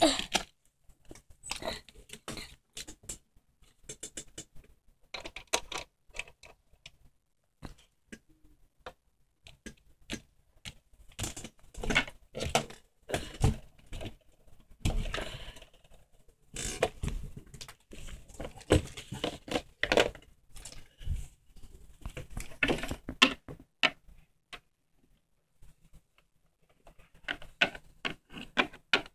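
Irregular taps, clicks and scrapes of small plastic Littlest Pet Shop toy figures being handled and set down on surfaces, mixed with rubbing and bumping from a handheld camera being moved around.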